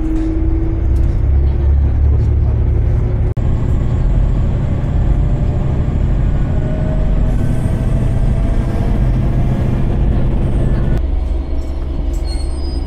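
Interior running noise of a diesel railcar in motion: a steady low rumble of engine and wheels, with faint tones that rise slowly as it gathers speed. The sound changes abruptly about three seconds in and again near the end.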